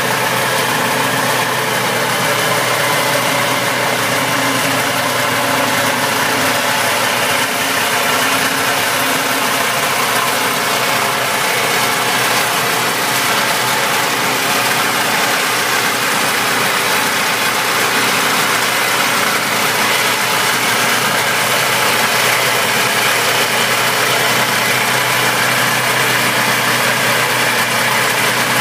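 1973 Ski-Doo Elite's fan-cooled two-cylinder two-stroke engine idling steadily, its engine hood open.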